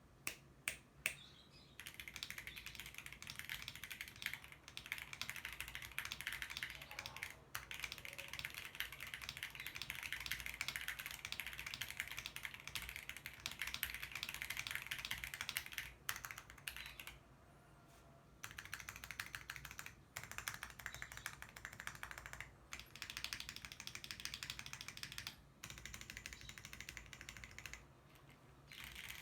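Akko ACR 75 mechanical keyboard with lubed Gateron China Joy switches, PBT keycaps and foam and tape mods, being typed on. A few single keystrokes come first, then fast continuous typing in runs with short pauses, the longest about 17 seconds in.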